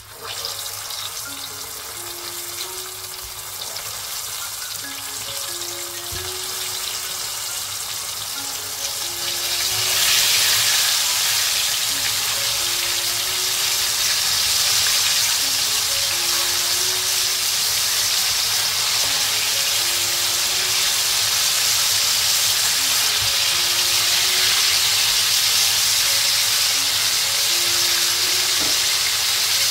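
Battered chicken wings deep-frying in hot oil in a wok: a loud, steady sizzle that grows as the wok fills with wings and steps up about ten seconds in.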